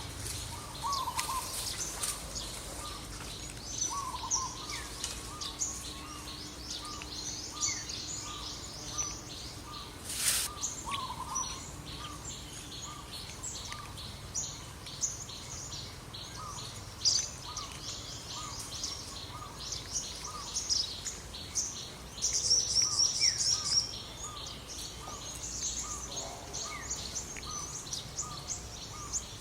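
Birds calling and chirping over a steady outdoor background: a short note repeated about once a second, scattered higher chirps, and a fast high trill about three-quarters of the way through.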